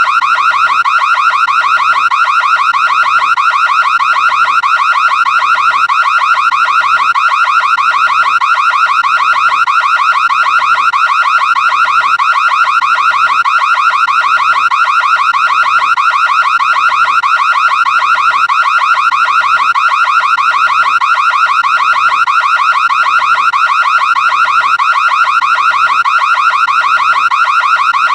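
Home security alarm siren of an ADT system going off: a loud, continuous high-pitched electronic tone with a fast warble, unchanging throughout. It is the intruder alarm tripped when the system is disturbed.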